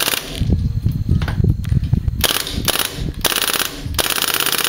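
Airsoft guns firing several rapid bursts of clicking shots, the longest near the end, with low thumps and knocks in the first couple of seconds.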